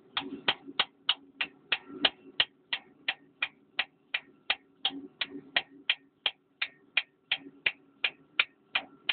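Hand ratchet wrench clicking in an even, steady rhythm of about three sharp clicks a second as it is worked back and forth on a fastener of a Cat 950F loader's fuel injection pump.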